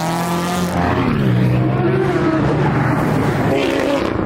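Car engine running and revving, its pitch sliding down and back up as the revs change.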